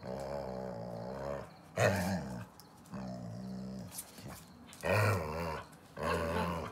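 Dog growling in five drawn-out spells of up to a second and a half each, with short pauses between them.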